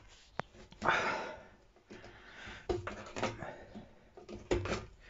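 Scissors blade scraping round the edge of a freshly drilled hole in a plastic water tank, taking off the burr, in short rasping strokes mixed with a few clicks and knocks.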